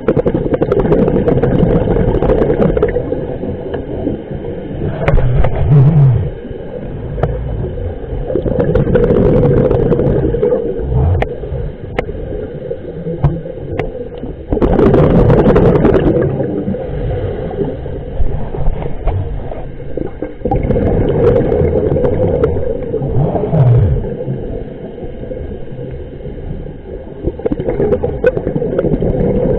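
Scuba regulator breathing underwater: exhaled bubbles gurgle out in loud bursts of two to three seconds, about every six seconds, with quieter inhales between.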